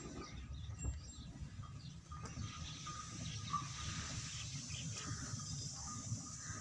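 Faint outdoor background noise: a low rumble with scattered faint bird chirps.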